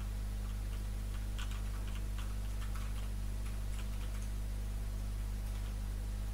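Steady low electrical hum, with faint scattered light ticks clustered between about one and four seconds in.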